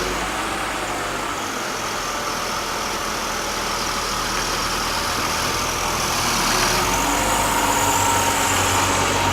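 BMW E36 Compact's swapped-in M52TU 2.8-litre straight-six engine running steadily, with a hum under a broad hiss. About seven seconds in, the engine note gets louder and fuller.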